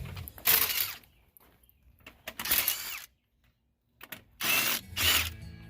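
Power impact wrench running on wheel lug nuts in three short bursts, each with a brief rising whine.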